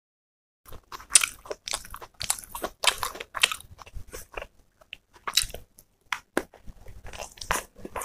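Close-miked chewing of a mouthful of chopped raw green chillies: crisp, irregular crunches that start just under a second in.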